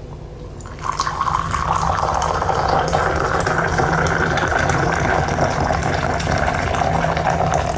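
Water running or pouring steadily, starting about a second in, over the low hum of an old record.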